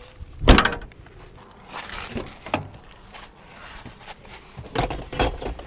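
A car's rear hatch shut with one loud thunk about half a second in, followed by footsteps on dirt and rustling and knocks as someone climbs into the driver's seat.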